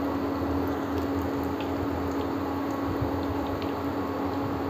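Kofta balls of paneer and potato sizzling steadily in hot oil in a frying pan, with scattered small pops and crackles, over a steady low hum from the induction cooktop.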